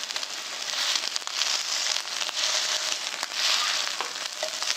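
Minari and squid pancakes sizzling and crackling in oil in a frying pan, the sizzle swelling a few times while a wooden spatula presses on one of them.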